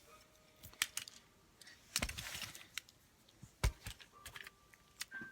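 Fidget cube being handled, giving four sharp clicks about a second or more apart, with a brief rustle of handling after the second.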